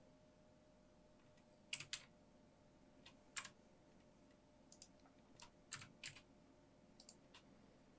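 Faint clicks of a computer keyboard and mouse, about a dozen short taps at irregular intervals, several in quick pairs.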